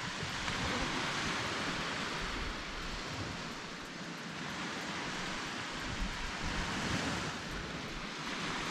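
Small surf breaking and washing up a sandy beach, a steady hiss that swells and eases in slow waves, with wind buffeting the microphone in low rumbles.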